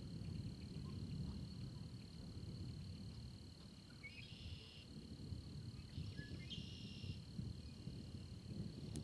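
A steady, high-pitched insect chorus over a low rumble, with two short bird call phrases about four and six seconds in.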